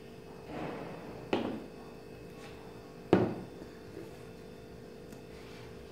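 Small glass bowls being handled and set down on a table: a soft scrape, then two sharp knocks about two seconds apart, the second the louder, over a steady low hum.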